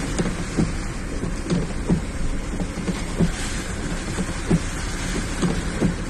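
Car driving slowly through floodwater in heavy rain, heard from inside the cabin: a steady low engine and road rumble under the hiss of rain and water on the car. Short knocks recur every half second to a second, often in pairs.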